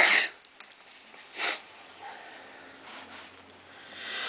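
A person sniffing into a tissue held to the nose: a loud burst right at the start and another short sniff about a second and a half in. The strong mint smell of freshly opened gum is setting off sneezing.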